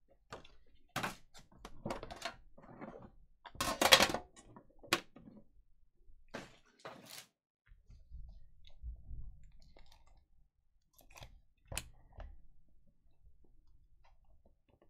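Trading-card box packaging being handled: an irregular series of clicks, taps and short scrapes as the boxes are moved, set down and opened, with a sharp click about five seconds in and another near twelve seconds.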